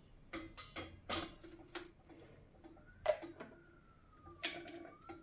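Irregular sharp clicks and knocks, about seven in five seconds, the loudest about three seconds in. A faint thin tone wavers in pitch through the second half.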